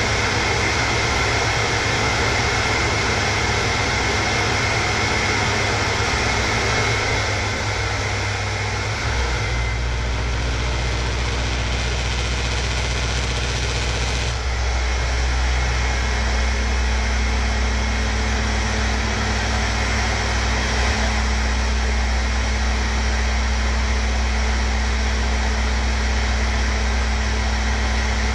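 Electric hand mixer running steadily with its beaters in a plastic jug of beaten eggs, a continuous motor whir. Its tone shifts about nine seconds in and again about fourteen seconds in.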